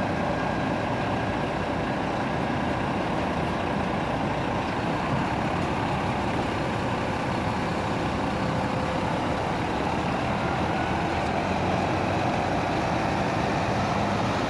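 Engine of a Volvo-chassis tri-axle coach running steadily as the bus pulls slowly away on departure, the sound growing a little louder toward the end.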